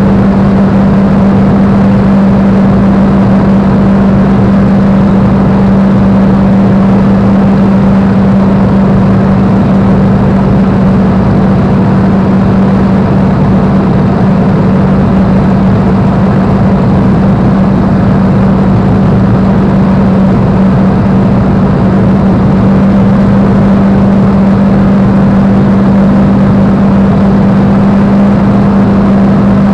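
Spitfire's V12 piston engine and propeller running steadily in cruise, heard from inside the cockpit as a loud, unchanging drone with a strong steady hum and the rush of airflow.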